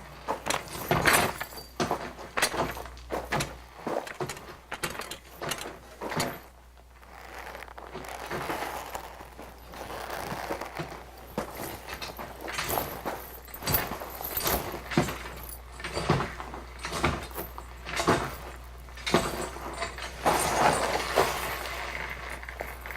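Foley performance of a rider dismounting from a horse, walking about and taking a sword: a string of knocks, steps and jangling rattles of leather and metal props, with rustling in between.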